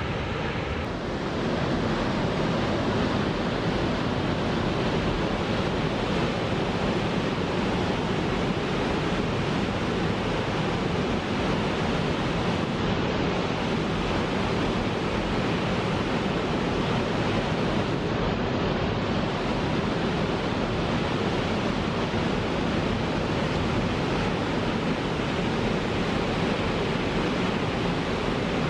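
Water jetting from a single conduit outlet of the Koshibu Dam, a concrete arch dam, and crashing into the plunge pool below. It makes a steady, even rush of water with no breaks.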